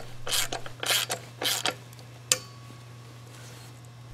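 Socket ratchet with a deep socket clicking in several short strokes as self-locking nuts are run down and tightened, ending in one sharp metallic click a little past two seconds in.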